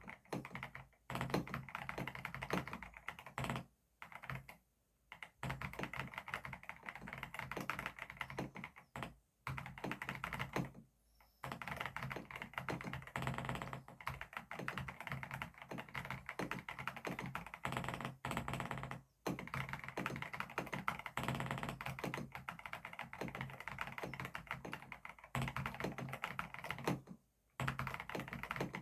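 Fast typing on an Epomaker RT100 mechanical keyboard with Epomaker Flamingo switches: dense runs of keystrokes broken by several short pauses of under a second.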